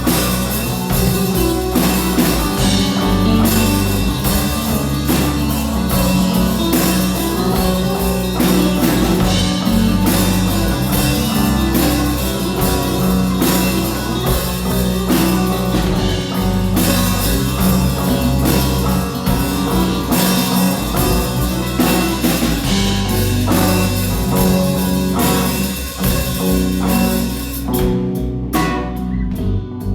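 Rock band playing a song on drum kit and electric guitar, with sustained bass notes under a steady beat. Near the end the high cymbal wash drops out, leaving sparser hits.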